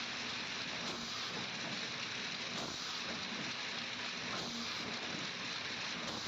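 Vial washing machine running, with a steady spraying hiss of its wash jets. A faint hum returns about every second and three-quarters as the machine cycles.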